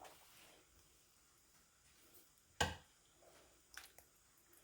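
Mostly quiet kitchen with one short knock about two and a half seconds in, followed by a few faint clicks.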